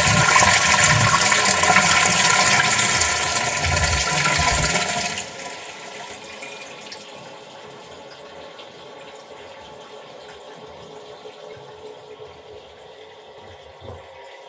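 Toilet flushing: a loud rush of water for about five seconds, which drops suddenly to a much quieter, steady hiss of the cistern refilling.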